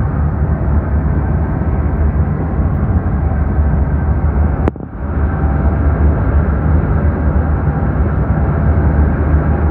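Steady low road and engine rumble of a car driving through a road tunnel, heard from inside the cabin. About halfway through there is a single sharp click and the noise dips for a moment.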